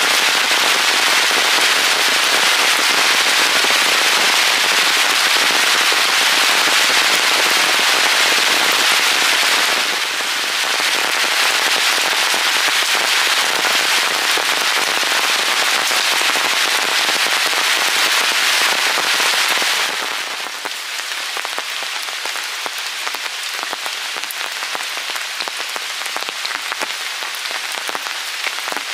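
Heavy rain falling on a forest floor and a puddled stream bed, a dense, even hiss of drops. It gets a little quieter at about ten seconds and again at about twenty seconds.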